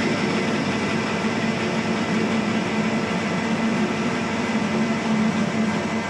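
Metal lathe running steadily while its tool takes a facing cut across a spinning metal gear blank, a steady machining hum with the motor and gearing tones under it.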